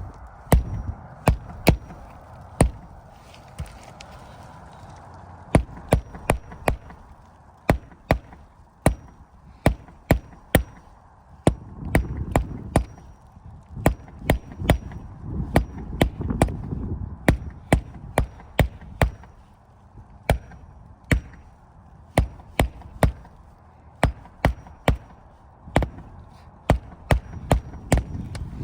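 Hammer driving roofing nails into an asphalt shingle: sharp blows in short runs of two to four, one run after another.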